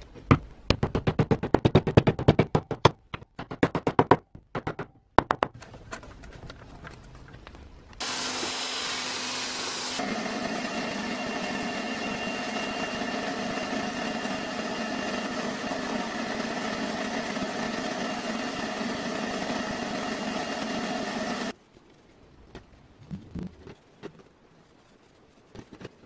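A black rubber mallet knocking a wooden dowel into a glued wooden block with many quick taps over the first five seconds. About eight seconds in, an abrasive blast cabinet gun starts a steady hiss that runs for about thirteen seconds, then cuts off suddenly.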